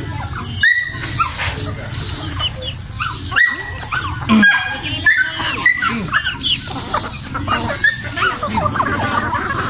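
A flock of native chickens clucking and calling as they crowd in to feed, many short calls overlapping one another.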